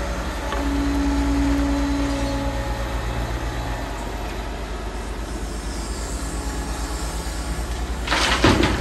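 Liebherr R940 Demolition excavator's diesel engine running steadily with a low pulsing drone, a held tone sounding over it for about two seconds near the start. Loud clattering knocks break in about eight seconds in.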